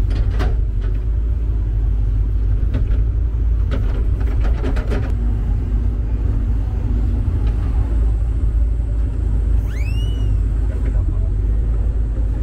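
A steady low rumble, like a running engine, with a few scattered knocks in the first half. About ten seconds in there is one short squeal that rises and then falls.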